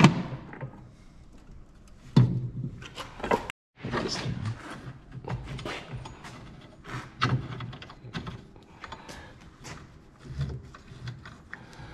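Irregular knocks and clunks from parts and hand tools being handled during suspension work on a car on a lift. There is a sharp hit at the start, a few more spread through, and a brief dropout to silence about three and a half seconds in.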